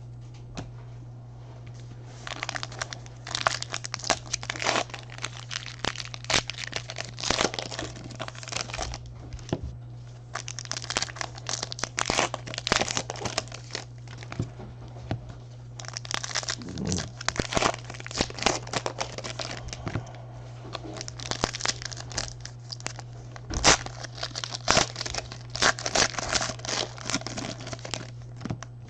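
Baseball card pack wrappers being torn open and crinkled by hand, in bursts with short pauses.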